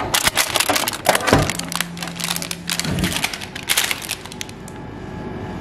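Crackling and crinkling of a plastic-wrapped ice cream being pulled out of a vending machine's dispensing door, with many quick sharp crackles. A short steady hum sounds about a second and a half in.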